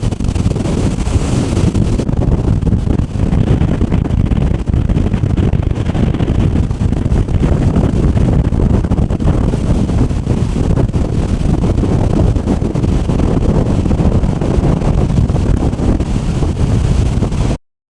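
Strong gale-force wind buffeting the microphone in a heavy, steady rumble, with storm surf breaking on the rocks beneath it. It cuts off suddenly near the end.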